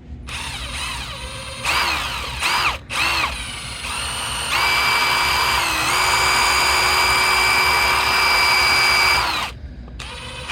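Power drill motor whining in a few short trigger pulses that rise and fall in pitch, then running at steady speed for about five seconds before stopping. It is spinning a rusty socket against steel wool to clean it.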